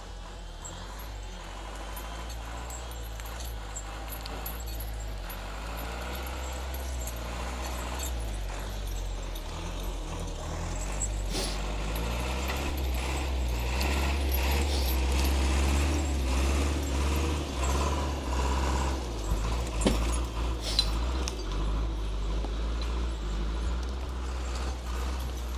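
Forestry harvester's diesel engine running under load as the harvester head feeds and processes a felled spruce trunk. The engine gets louder toward the middle and then rises and falls, with a few sharp clanks near the end.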